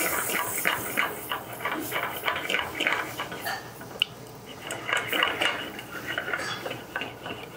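Metal spoon stirring a thick cream sauce in a sauté pan, scraping and clinking irregularly against the pan, with one sharper clink about halfway through.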